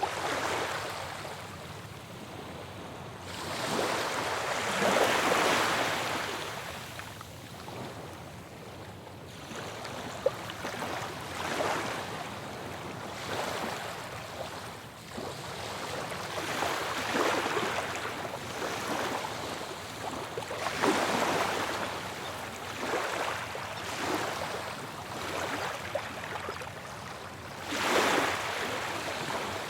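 Ocean waves breaking on a shore, each one a rush of surf that swells and fades, arriving every few seconds at uneven strength.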